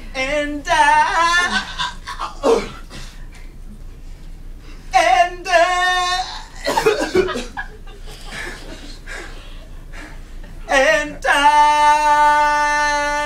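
A young man singing unaccompanied: a wavering run of notes, a short phrase a few seconds later, then one long held note near the end. Listeners laugh between the phrases.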